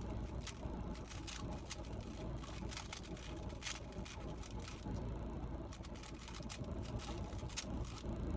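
Rubik's cube being turned: quick clicks of the layers snapping round, coming in irregular runs, over a steady low hum.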